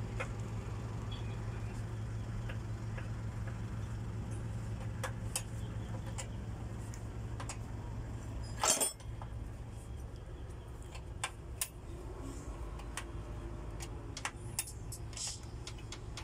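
Scattered metallic clicks and clinks of a wrench and hands working the fuel injection line fittings of a diesel truck engine, with one louder clank about nine seconds in, over a steady low hum.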